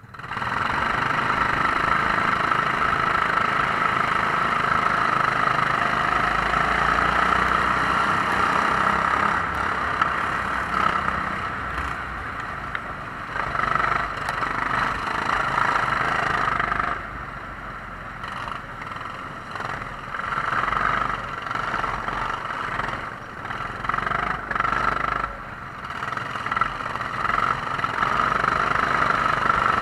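Rental kart engines opening up together at a race start, heard close from the camera's own kart in the middle of the pack. The engine note comes in suddenly and stays high, falls back twice in the second half and builds again near the end.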